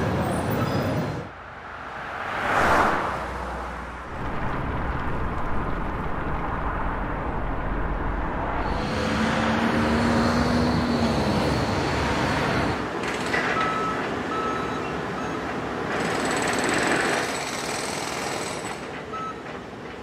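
City street traffic ambience with trucks and other heavy vehicles, in several short field recordings cut one after another. One vehicle swells loud and fades away about two and a half seconds in.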